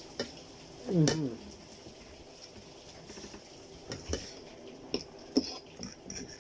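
Eating sounds from a noodle mukbang: chewing and slurping chow mein, with a utensil clicking against the plate several times. The loudest sound is a brief falling-pitched slurp or mouth sound about a second in.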